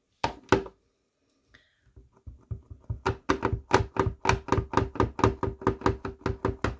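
A clear stamp on an acrylic block is tapped quickly and repeatedly onto an ink pad to ink it, about five hard knocks a second from about three seconds in. Two sharp clicks come first as the ink pad is handled.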